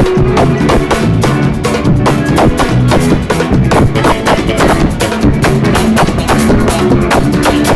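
A band playing loud music, led by a drum kit with bass drum and other percussion in a steady run of rapid strikes, over sustained instrument notes.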